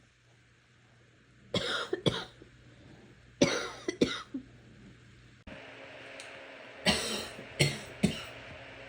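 A person coughing wetly, in three short bouts of a few coughs each.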